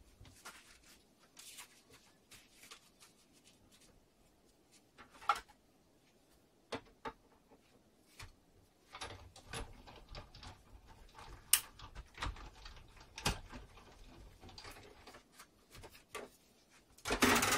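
A Big Shot hand-cranked die-cutting machine being used out of shot to cut a circle from a card gift bag: scattered clicks and taps of handling, then a low rumble with a run of sharp knocks in the middle as the plates are cranked through, and a louder rustle near the end.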